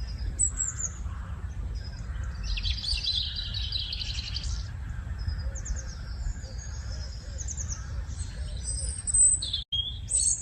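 Small birds chirping and twittering in quick, high calls, with a busy cluster a few seconds in, over a steady low rumble.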